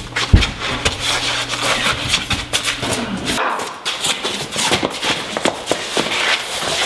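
A scuffle: clothes rustling, shuffling footsteps and knocks as a man is grabbed and manhandled, with a sharp thump near the start. About halfway through the background changes abruptly and a low steady hum drops out.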